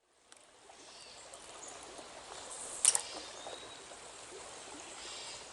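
Trout stream flowing and trickling, fading in at the start, with one brief sharp sound about three seconds in.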